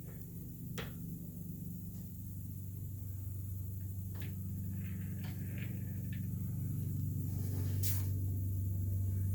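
Harrison M300 centre lathe running, a steady low hum that slowly grows louder, with a few sharp clicks along the way.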